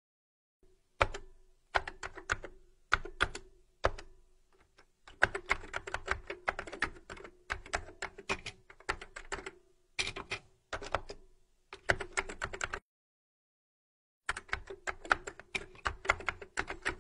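Typing on a computer keyboard: quick runs of key clicks in bursts with short pauses between them, and a longer break before a last burst near the end.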